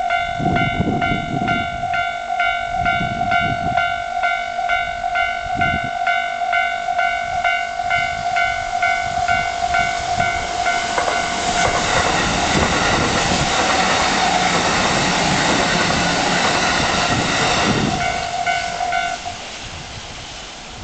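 Japanese railway level-crossing warning bell dinging about twice a second. About ten seconds in, a Kintetsu express train passes with a dense rush of wheel and rail noise for about seven seconds, and the bell stops shortly after the train has cleared.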